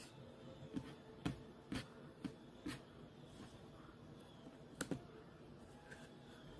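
Faint clicks of a computer mouse: about one every half second for the first three seconds, then a quick pair near five seconds.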